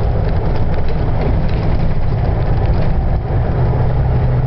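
Heavy logging truck's diesel engine running, a steady low rumble with light mechanical rattling on top.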